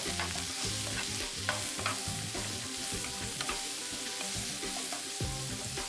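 Sliced bell peppers, mushrooms and carrot sizzling in hot seed oil in a frying pan as they are sautéed, stirred with a utensil that clicks against the pan now and then.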